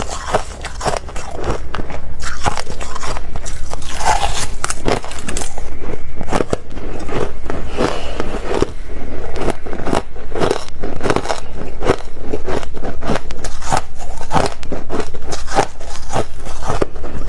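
A person biting into and crunching freezer frost in a loud, dense run of crisp, irregular crunches.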